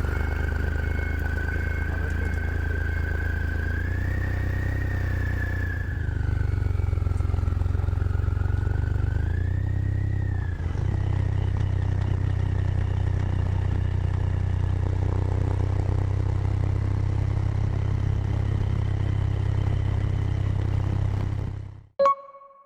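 Three-cylinder motorcycle engine running steadily, with a high whistle that wavers in pitch over it for the first half. The sound cuts off suddenly near the end, followed by a short ringing ping.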